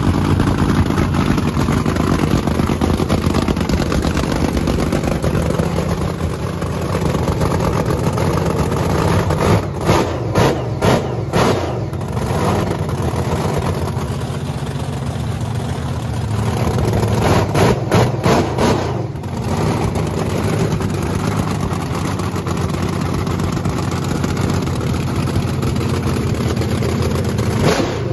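Car engine running at a fast idle of about 2,000 rpm, blipped in a string of quick short revs about ten seconds in and again about seventeen seconds in.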